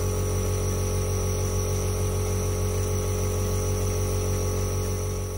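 Nebulizer compressor running with a steady hum and buzz under a hiss of air, misting asthma medication through a face mask for wheezing.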